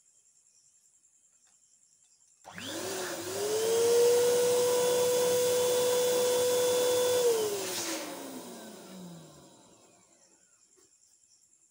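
Small electric balloon pump inflating a balloon. It switches on abruptly about two and a half seconds in, speeds up to a steady whine, and runs for a few seconds. It is then switched off and winds down with a falling pitch.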